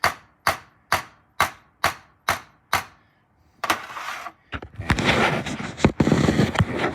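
Seven light, evenly spaced metal taps, about two a second, driving a new pin into the variable nozzle ring of a Defender 2.2 TDCi turbo being rebuilt. After a short pause comes dense rustling and clattering handling noise.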